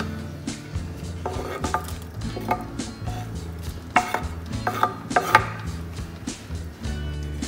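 Wooden spatula knocking and scraping against a wooden cutting board and the rim of a steel stockpot as chopped spring onions are pushed into the stew. There are scattered knocks, with the loudest cluster about four to five and a half seconds in, over background music with a steady bass line.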